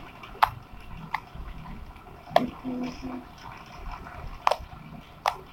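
Homemade slime being handled, stretched and squished by hand, giving about five sharp wet pops at irregular intervals.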